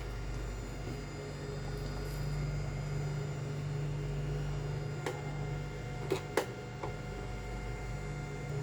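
Steady electrical hum, with four short sharp clicks between about five and seven seconds in.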